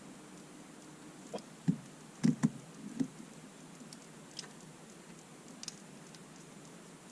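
A few light knocks and clicks, bunched between about one and a half and three seconds in, with a few fainter ticks later: small hard objects being handled.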